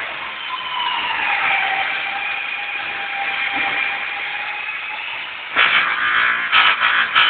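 A machine whining, its pitch dipping slightly at first and then holding steady, before a much louder rough, pulsing noise starts about five and a half seconds in.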